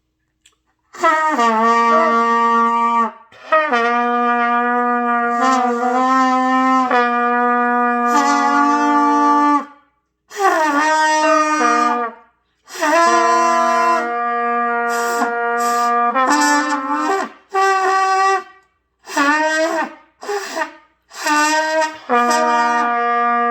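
A trumpet played by a beginner practising: a series of held notes, the first several lasting a few seconds each, some moving between pitches within one breath, then shorter notes near the end.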